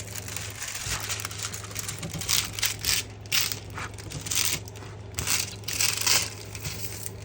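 Irregular crinkling and rustling of packaging and a rolled kit canvas being handled, over a steady low hum.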